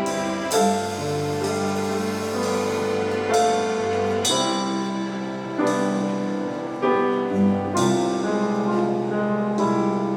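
Instrumental introduction to a Chinese song: sustained piano and orchestral chords with a slow, steady melody.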